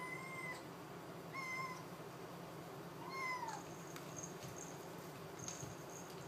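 A kitten meowing three times in high, thin calls, the last one falling in pitch at its end. It is calling for its food from behind a closed door.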